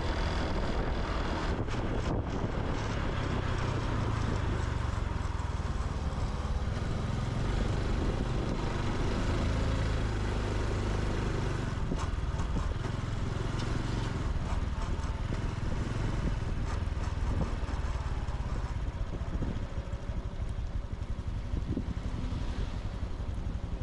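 Honda Super Cub C125's single-cylinder four-stroke engine running steadily while riding, with road and wind noise on the microphone.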